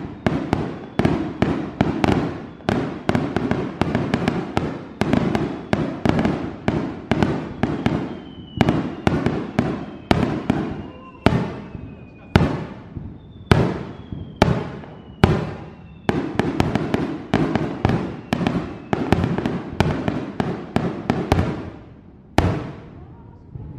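Fireworks show: a dense barrage of aerial shell bursts, several bangs a second, each trailing off. A few faint falling whistles come in the middle, and the bangs thin out near the end.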